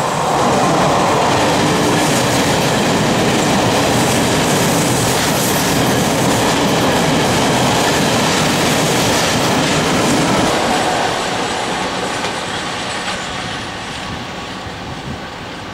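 Electric passenger train of coaches with a driving trailer and an electric locomotive passing close by, its wheels running on the rails. Loud and steady, easing off from about eleven seconds in.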